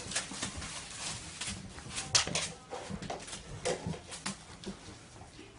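Puppies moving about, with scattered irregular light clicks and taps.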